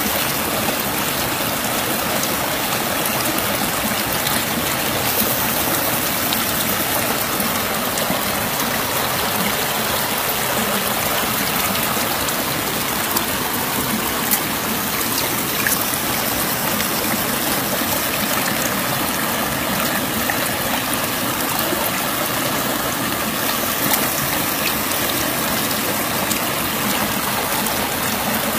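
River water rushing steadily over rocks, with a few sharp clicks now and then.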